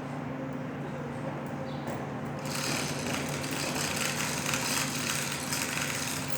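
A steady mechanical hum, joined about two and a half seconds in by a machine that starts abruptly and keeps running with a harsh, high hiss-like whirr.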